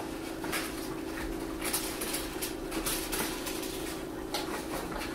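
Construction paper rustling and crinkling in scattered light touches as a folded paper alligator is handled and a glued paper tongue is pressed into its mouth, over a steady low hum.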